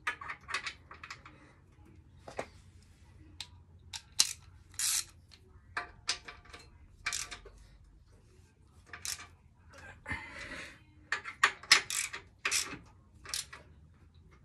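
Hand socket ratchet clicking in short, irregular runs, with small metallic clinks of the tool, as the rear shock absorber's mounting nuts are tightened.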